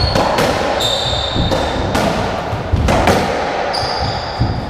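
A racketball rally: the hollow rubber ball smacks off rackets and the court walls several times, and a few high squeaks come from shoes on the wooden floor.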